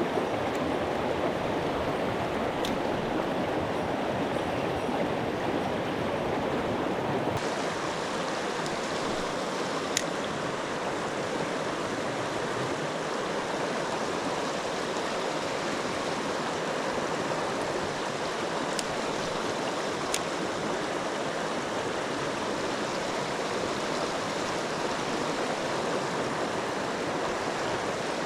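Mountain stream water rushing and burbling steadily, with a few faint clicks.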